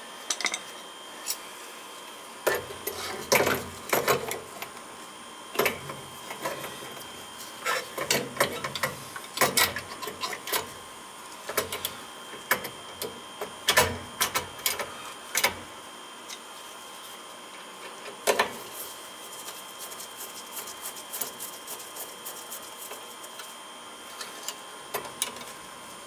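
Irregular clicks and knocks of metal parts being handled as a Riello oil burner is refitted on a furnace, busiest in the first half and sparser later, over a faint steady high hum.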